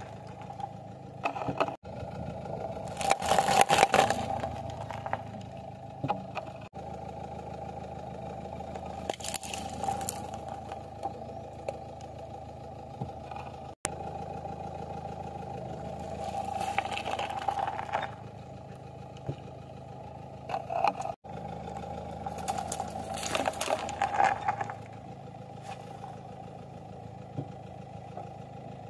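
A car's tyre rolling over and crushing objects on asphalt (a sealed snack packet, plastic cups of liquid, tomatoes): about four bursts of crunching, popping and squashing, the loudest a few seconds in, over the steady running of the car's engine.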